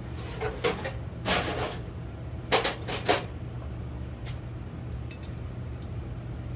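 Metal hand tools clinking and knocking together: a 14 mm socket and wrench being picked up and handled. There are a few sharp clicks and short clatters in the first three seconds, then only faint ticks.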